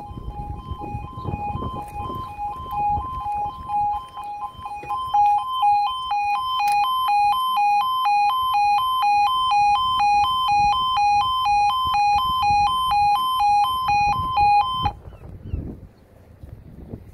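Level crossing audible warning alarms ('yodalarms') sounding an alternating two-tone electronic wail as the barriers come down for an approaching train. The alarm cuts off suddenly about 15 seconds in, once the barriers are down.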